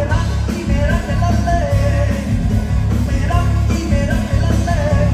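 Loud live band music with a sung vocal line over a heavy, steady bass.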